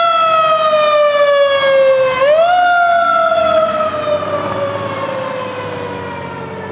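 E-One fire engine's siren on an emergency run: its pitch climbs quickly and then slides slowly down, is pushed up again about two seconds in, and slides down once more while fading as the truck pulls away.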